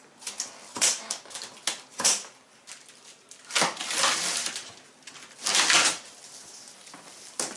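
Scissors snipping through plastic packing straps on a large cardboard box, with sharp snaps, then longer stretches of cardboard scraping and rustling as the box top is worked open.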